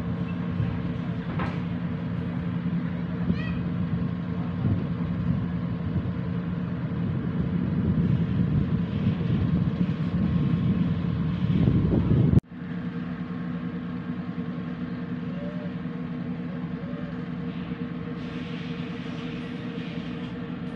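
Boat engine running at a steady hum, heard from on board, under a rough low rumble that builds louder and then cuts off suddenly about twelve seconds in.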